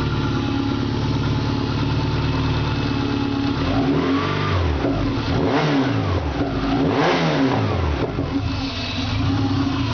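Subaru EJ22 flat-four engine idling smoothly, then revved by hand at the throttle a few times from about four seconds in, each rev rising and falling, before settling back to a steady idle near the end.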